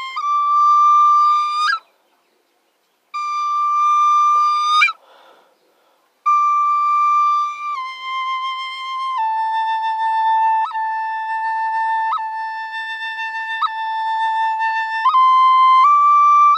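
A small flute played slowly in long held notes that step between a few pitches, with two short breaks for breath in the first six seconds. Then one low note is held for about six seconds, broken by three quick upward flicks, before the melody steps up again near the end.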